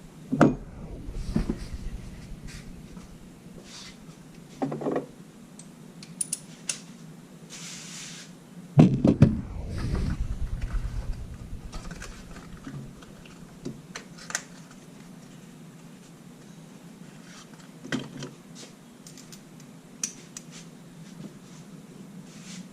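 Scattered knocks, clicks and clinks of tools and parts being handled, loudest about half a second in and around nine seconds in, over a low steady hum.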